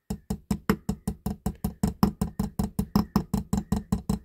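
Small hammer tapping rapidly on the edge of a diecast model truck's metal body, about five light even strikes a second, to tap bent metal straight.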